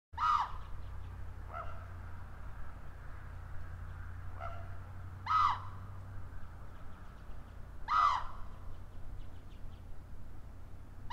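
Common raven calling: short calls a few seconds apart, three loud and two fainter.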